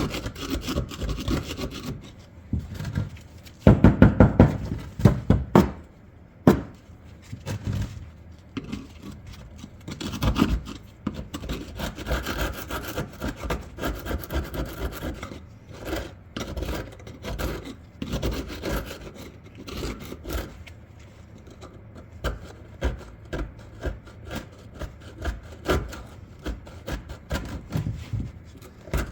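Crusted rust being scraped and chipped off an old, corroded shotgun's metal with a hand tool, in irregular scraping strokes and small knocks. There is a run of quick, louder strokes about four seconds in.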